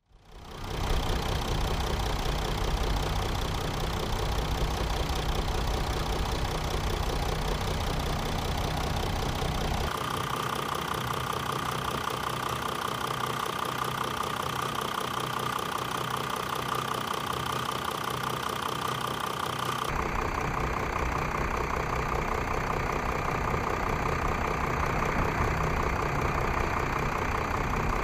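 A Jeep's 3.0 CRD V6 turbodiesel idling steadily, picked up close to the open engine bay. The tone of the sound changes abruptly twice, about ten and about twenty seconds in, as the recording switches from one microphone to another.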